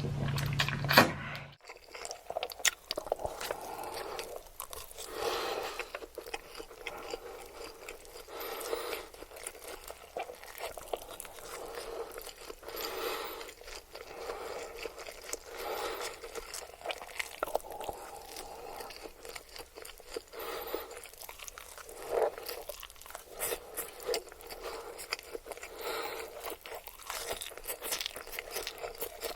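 Close-miked mukbang eating of spicy noodles: steady chewing with many short wet mouth clicks and smacks. In the first second and a half a low hum and a loud thump come before the chewing sets in.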